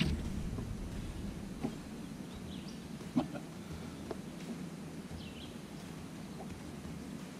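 Small clicks and taps of hands working a hook out of a largemouth bass's mouth, the sharpest about three seconds in. A few faint bird chirps come through in the background.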